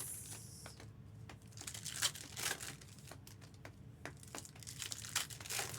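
Foil trading-card pack wrappers crinkling as they are handled: a run of irregular small crackles.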